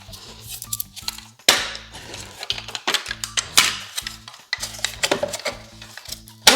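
Sharp metallic clinks and clacks of hand tools working on a car door-mirror hinge, the loudest strikes about a second and a half in, about three and a half seconds in, and at the very end, over background music.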